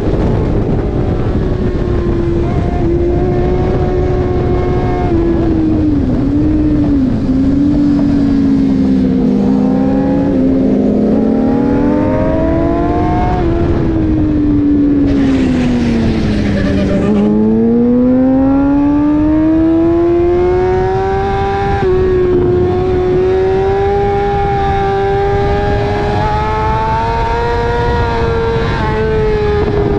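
Sport motorcycle engine at speed, heard from on the bike with wind rush, its revs rising and falling through gear changes. About halfway through the revs fall steeply while a short burst of hiss is heard, then climb steadily again as the bike accelerates.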